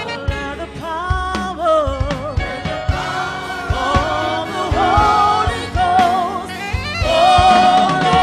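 Live gospel worship music: a held, wavering lead voice over a band with a steady low beat.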